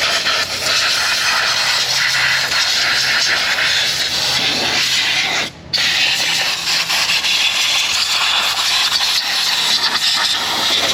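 Compressed-air blow gun blowing shop air around an engine's ignition coils to clear dirt before they come out: a loud, steady hiss that stops briefly about five and a half seconds in, then starts again.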